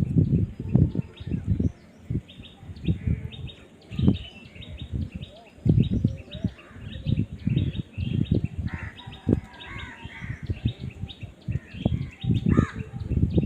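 Birds chirping in short, rapid calls, with frequent irregular low knocks or thumps that are louder than the calls.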